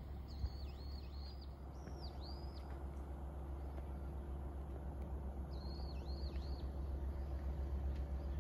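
A small bird calling in three short bursts of high whistled notes, each note dipping sharply down in pitch and back up, over a steady low rumble.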